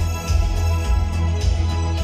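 Music played back through a Pioneer Elite VSX-45 AV receiver and floor-standing loudspeakers, with heavy bass and a steady beat.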